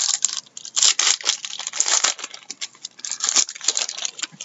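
Packaging on a box of trading cards being torn open and crinkled by hand: quick bursts of crinkling and tearing with small clicks in between.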